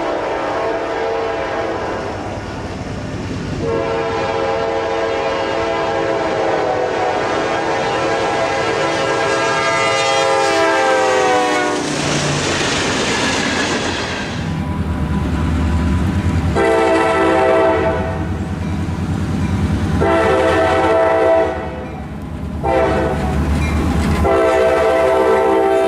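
Locomotive air horn sounding a chord of several notes in long blasts, the pitch sliding down about ten seconds in as the train passes, then the rumble of the passing train. Further long horn blasts follow from about 17 s, with a short break just past 21 s.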